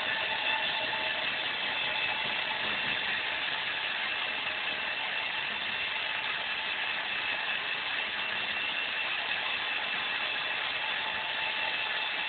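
Cordless drill running steadily at one speed, its motor and gearbox winding the cable hoist of a homemade garage freight lift so that the platform rises.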